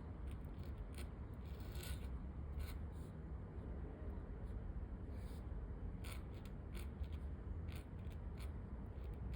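Calligraphy pen nib scratching across paper in short, irregular strokes, over a low steady rumble.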